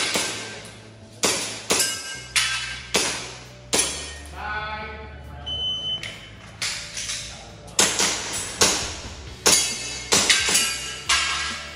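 A string of sharp airsoft pistol shots, about a dozen at irregular spacing in quick groups, with a pause of about two seconds in the middle. Background music with a steady bass runs underneath.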